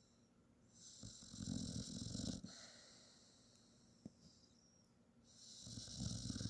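A sleeping dog snoring: two long snores, each lasting about a second and a half, about four seconds apart.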